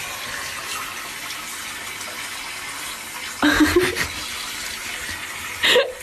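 Water running in a bathtub, a steady hiss. About three and a half seconds in, a short wavering voice-like sound cuts in, and a brief louder sound comes shortly before the end.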